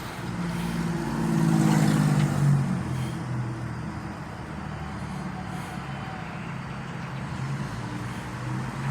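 Road traffic passing a waiting car, with one vehicle swelling loudest about one to three seconds in, then a steadier engine hum.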